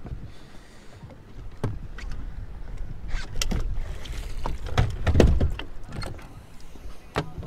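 Minn Kota bow-mount trolling motor being pulled up and stowed: clicks and knocks from the mount, the lower unit splashing as it leaves the water, and heavy thumps about five seconds in as it is laid down and latched on the bow.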